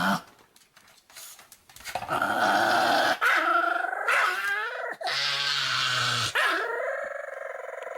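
A Pomeranian snoring: high, whistling, whine-like snores that waver in pitch. After a brief quiet moment near the start, several long snores follow one after another, one of them with a low rumble under it.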